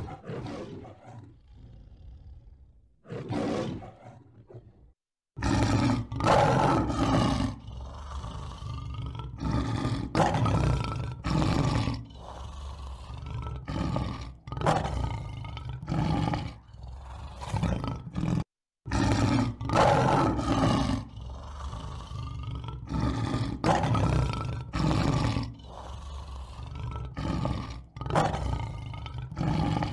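Lion roaring: a few quieter roars at first, then, after a brief silence about five seconds in, a long, louder run of roars about one a second, broken once by a short gap.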